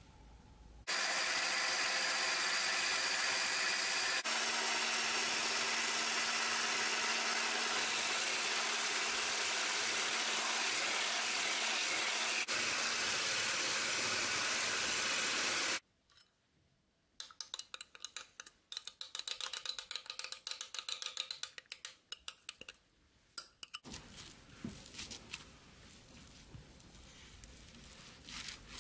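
Handheld electric whisk running steadily as it beats egg whites into foam, with a steady motor whine that cuts off about halfway through. After it stops come irregular clicks and scrapes of utensils against a bowl as ingredients are stirred.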